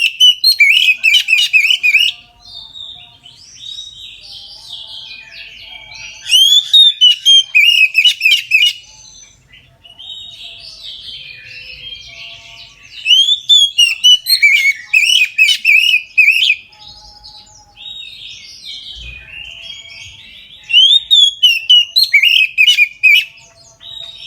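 Oriental magpie-robin (kacer) in full song: four loud bursts of quick, rising notes, about seven seconds apart, with softer twittering between them.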